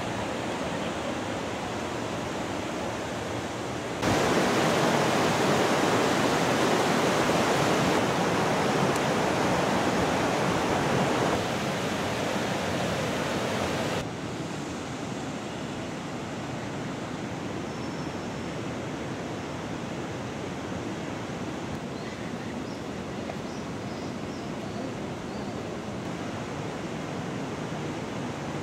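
Steady rush of a mountain river running over rocks. It gets abruptly louder about four seconds in, drops back in two steps around eleven and fourteen seconds, and stays an even, quieter rush after that, with a few faint high chirps near the end.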